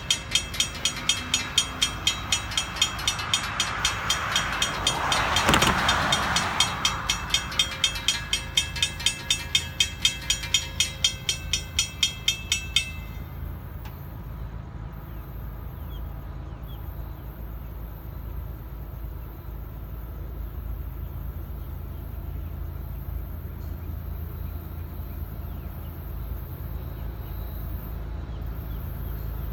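Railroad crossing bell ringing steadily at about two strokes a second while the crossing gates come down, with a whoosh rising and falling about five seconds in. The bell stops suddenly about 13 seconds in, leaving a low steady rumble.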